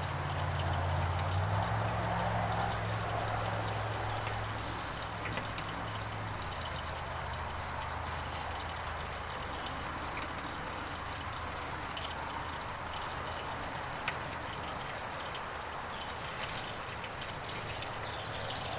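Burgers and bacon sizzling on a charcoal grill, a steady hiss, with a low drone underneath that shifts in pitch twice in the first seven seconds.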